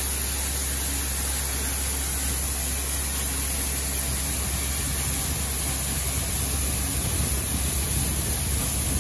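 Shelled corn pouring from an overhead spout into a hopper-bottom grain trailer, a steady rushing hiss, over a steady low machinery hum.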